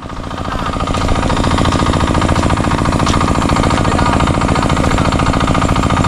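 A small engine running steadily with a fast, even pulse, building up over the first second.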